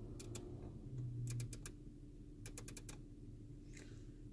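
Audi MMI rotary control knob being turned, giving three short bursts of quick detent clicks as the menu scrolls, over a faint steady low hum.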